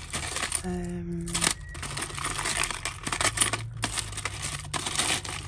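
Costume jewellery clinking and jangling as a pile of metal chains, bangles and beads is rummaged through by hand, a dense run of small metallic clicks.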